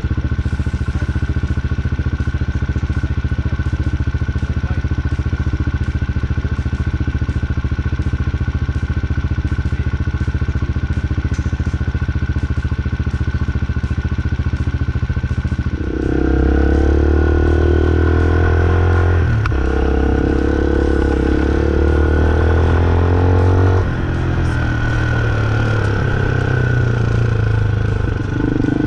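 Hawk 250 dual-sport motorcycle's single-cylinder engine idling steadily, then getting louder as the bike pulls away about halfway through. There is a short break a few seconds later, and the engine eases off and picks up again near the end.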